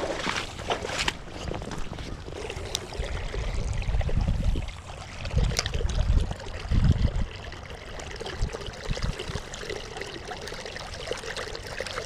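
Fast-running creek water rushing and trickling, with a few low rumbles about midway.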